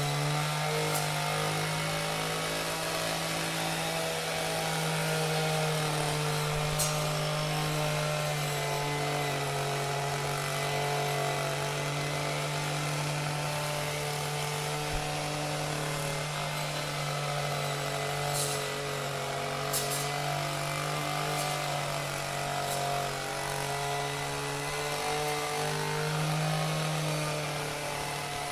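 Chainsaw engine running at a steady speed without pauses, over a constant low drone, with a few sharp knocks scattered through.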